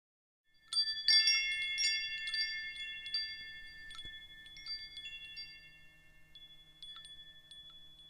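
Wind chimes ringing. A flurry of strikes comes about a second in, then fewer and fewer strikes follow while the high, bell-like tones ring on and slowly fade.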